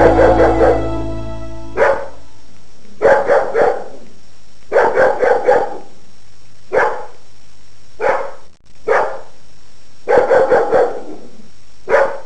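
A dog barking in short volleys of one to four barks, a volley every second or two. The tail of a song ends about two seconds in.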